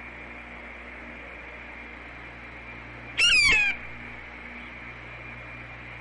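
Blue jay giving one harsh, wavering call about half a second long, a little over three seconds in, over a steady hum and hiss.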